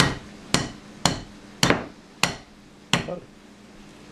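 A cooked Dungeness crab claw struck sharply again and again against the rim of a glass bowl to shake the meat out of the shell. Six hard knocks come about half a second apart, each with a brief ring, and they stop about three seconds in.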